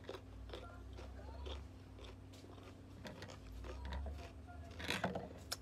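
Close-up crunching of fresh cucumber slices being bitten and chewed, a crisp crackle every half second or so, loudest in a burst about five seconds in.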